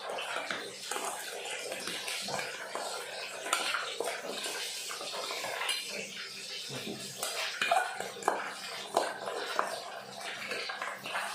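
Metal spoon scraping and clinking against a small stainless steel pot while chopped fried tilapia and vegetables are stirred and tossed, with a few sharper clinks between about seven and nine seconds in.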